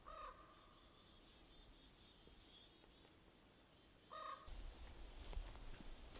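Two short, steady elk calls blown on a mouth diaphragm call, about four seconds apart, followed by low rumbling noise.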